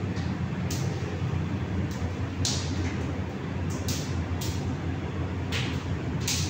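Steady low roar of a commercial kitchen, with about six short, sharp hissing noises spread through it.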